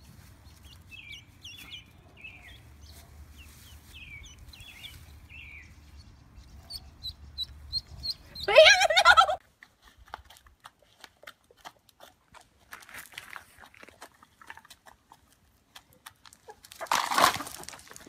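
Domestic hens and a small bird: faint high chirping through the first third, then a loud brief call about halfway. After that come soft scattered pecking ticks as the hens feed from a toddler's hands, and a loud burst near the end.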